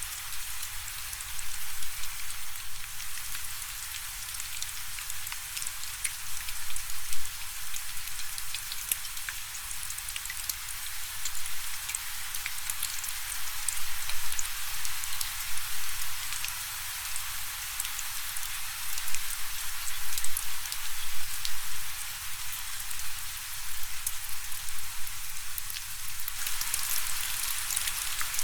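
Steady rainfall: an even hiss of rain with many individual drops ticking on a surface, growing a little stronger near the end.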